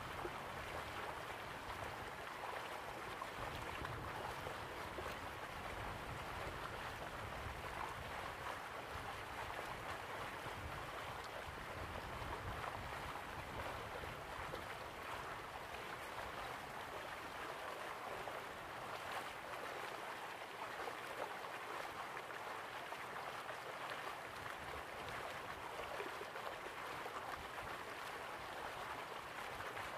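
Steady rush of sea water lapping and splashing against the side of a small boat, with a low wind rumble on the microphone that eases off about two-thirds of the way through.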